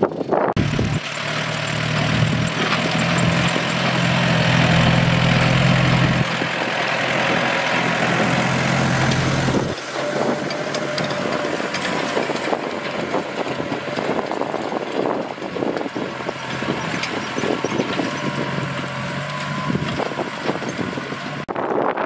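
Tractor diesel engine running under load as it works soil. The hum is loudest for the first ten seconds, eases back, then swells briefly near the end, with frequent knocks and rattles throughout.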